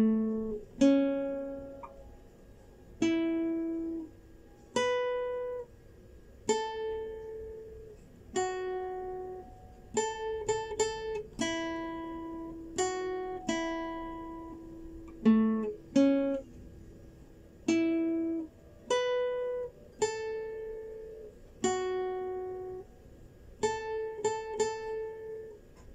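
Classical guitar playing a slow melody in A minor one plucked note at a time, each note left to ring, with a few quicker runs of notes about ten seconds in and near the end.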